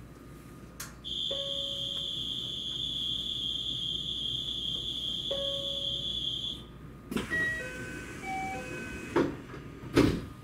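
Station departure buzzer sounding steadily for about five seconds. It is followed by a short run of electronic chime notes at changing pitches and a few sharp knocks, the loudest near the end.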